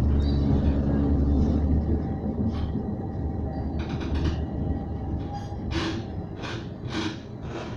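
A CAF Urbos 3 tram running on street track, heard from inside the car: a steady low rumble with a hum in the first second or so, growing quieter as the tram slows toward a stop. From about four seconds in, a series of short hissing clatters comes every half second or so.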